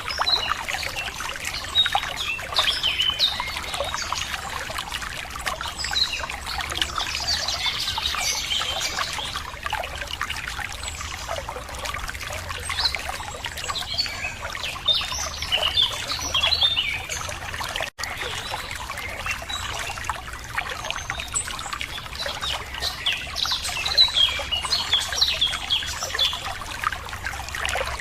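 Running water trickling steadily, with many small birds chirping and calling over it. About two-thirds of the way through there is a very brief dropout in the sound.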